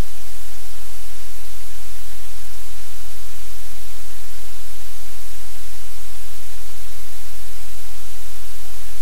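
Loud, steady static hiss with a low hum underneath, unchanging throughout; no handling or dog sounds stand out from it.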